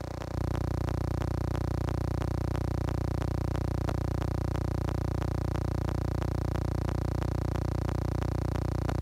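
A steady buzzing drone with a rapid, even ticking running through it, getting louder a moment after the start.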